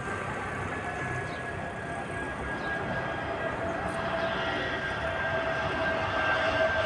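Jet airliner's engines on landing approach: a steady rumble and whine that grows gradually louder.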